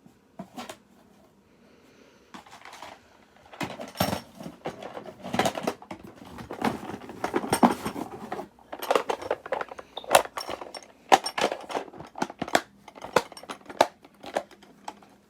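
Bento box being handled and taken apart: its lid and compartments clicking and knocking together, with the metal chopsticks and spoon clinking against it. Sparse at first, then a dense run of sharp clicks and clatters from about four seconds in.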